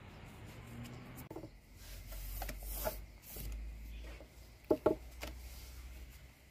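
Soft rustling and light handling noises as thin sheets of rolled dough are buttered and lifted on a wooden board, with two sharp clicks close together about three-quarters of the way through.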